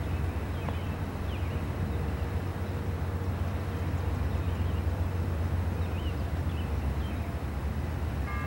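Outdoor background at an idle railroad crossing: a steady low rumble, with a few faint short chirps scattered through.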